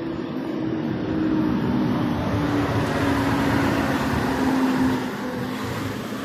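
A motor vehicle passing close by on the road: its engine note and tyre noise swell over the first few seconds and fade after about five seconds, the engine tone dropping slightly in pitch as it goes by.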